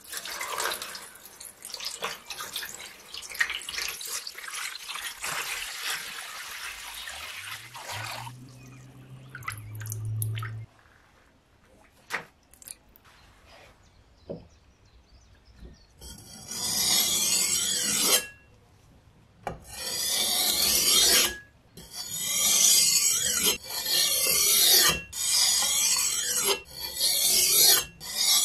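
Water runs onto a wet whetstone. After a few light knocks as the stone is set down, a steel bayonet blade is drawn across the 1000-grit face of the wet combination whetstone in about seven long scraping sharpening strokes, each one to two seconds long.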